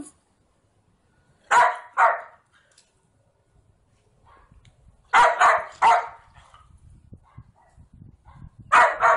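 A dog barking: two barks about a second and a half in, three more around five to six seconds, and another starting near the end.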